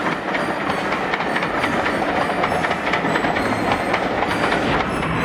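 A train running along the track, its wheels clattering over the rail joints.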